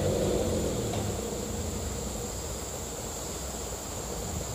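Ragasa 4x4 truck's diesel engine idling, a low pulsing rumble that settles lower in the first second, over a steady high-pitched drone of insects.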